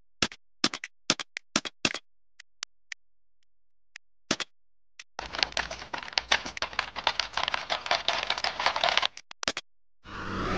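Computer mouse clicks, about a dozen spaced out over the first four seconds, then about four seconds of fast typing on a computer keyboard. A rising rushing noise starts near the end.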